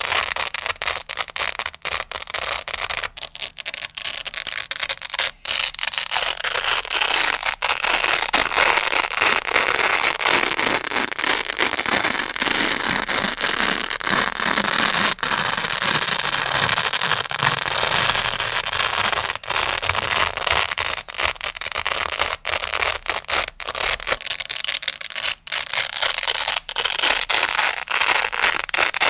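Grey velcro pad close to the microphone, its hook-and-loop crackling and ripping in a continuous dense crunch of tiny clicks, with a few brief pauses.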